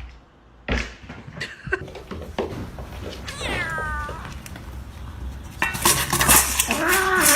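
A cat meowing: one falling meow about three and a half seconds in, then another meow near the end among louder, noisy sounds.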